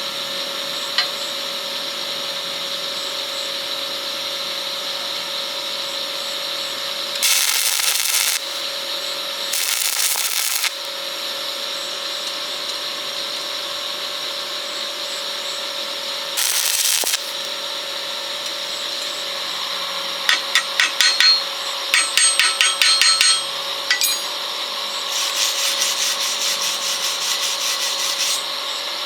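Metalworking tools: a steady machine hum under three harsh one-second bursts of grinding or rasping noise, then a run of rapid clicking and a few seconds of scraping.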